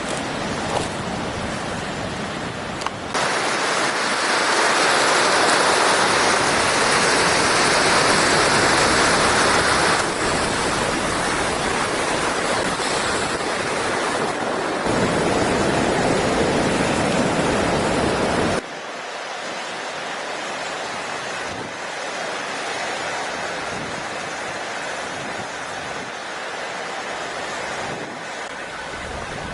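Ocean waves washing up the beach with gusty wind on the microphone, a steady rush of noise. It gets abruptly louder about three seconds in and drops back sharply at about eighteen seconds.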